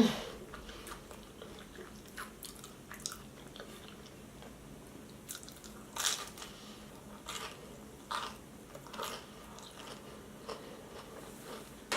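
A person chewing and biting crunchy breaded food close to the microphone, with soft, irregular crunches and mouth sounds every second or so.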